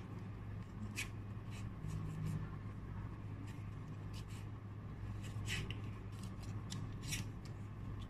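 Match Attax football trading cards being handled and sorted by hand: scattered short rustles and flicks of card against card, over a steady low hum.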